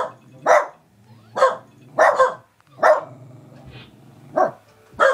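A small dog barking up at a fly: about seven sharp, single barks at uneven intervals, two of them close together near the middle.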